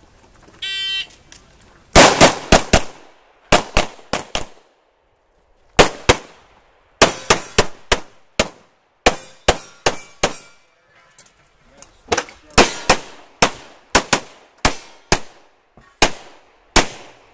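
Electronic shot timer's start beep, then strings of semi-automatic pistol shots fired in quick pairs and rapid bursts with short pauses between them.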